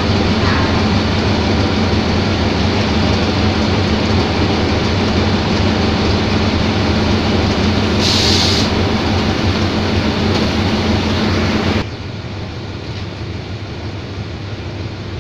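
Diesel-electric locomotive engine idling at a station platform, a loud, steady low hum. A brief hiss about eight seconds in. About twelve seconds in, the sound cuts abruptly to a quieter, more distant engine rumble.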